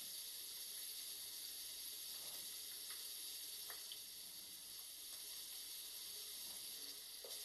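Kitchen water tap running in a steady hiss, with a few faint clicks.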